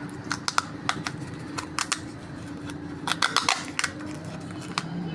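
Irregular clicks, taps and rustles of parts being handled and packed by hand, in small clusters, over a steady low hum.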